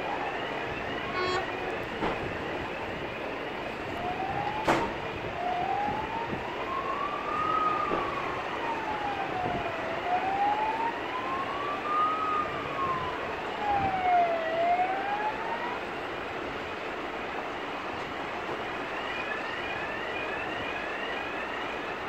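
Emergency vehicle sirens: a slow wail that rises and falls about three times in the middle, over a faster repeating yelp from another siren that is heard at the start and end, with road traffic underneath. A single sharp click about five seconds in.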